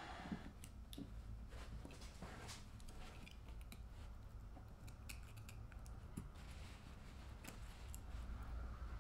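Knife blade scraping and trimming excess clear plastic from the edge of a ball bearing, with faint, irregular scratches and small clicks over a low steady hum.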